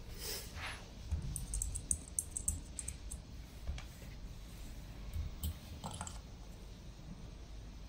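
Irregular light clicks and taps, thickest between about one and three seconds in, with a few more near the end, over a faint low hum.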